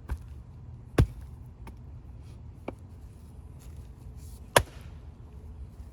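Axe blows splitting firewood: two hard, sharp strikes about three and a half seconds apart, with lighter knocks of wood between them.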